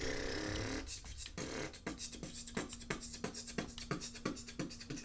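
Intro music: a short vocal snippet, then a beat of sharp percussive hits about three a second over a held low note.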